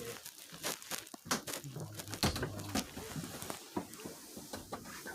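Quiet interior of a stalled subway car: scattered small clicks and rustles over a faint low hum.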